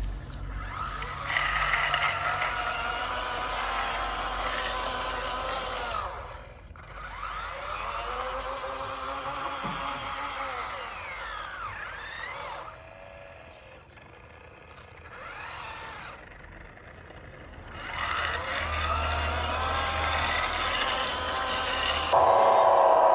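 Electric drive motors and hydraulic pump of radio-controlled construction models whining, the pitch rising and falling as the machines speed up and slow down, with a couple of quieter pauses. A louder steady whine starts suddenly near the end.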